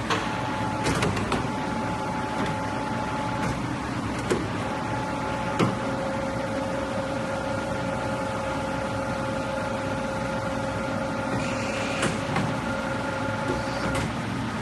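CNC pipe bending machine running: a steady mechanical hum with several held whining tones that come and go, and a handful of sharp clicks.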